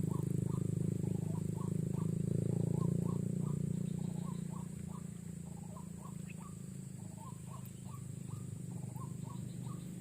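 A steady engine hum, louder in the first few seconds and fading away after about four seconds, under a run of short chirping animal calls repeating about three times a second.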